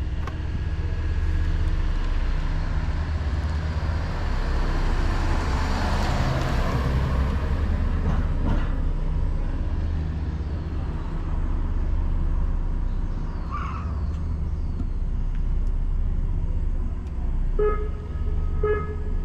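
Steady low engine drone, like a motor idling near the harbour. A rush of noise swells and fades a few seconds in, and a few short pitched beeps sound near the end.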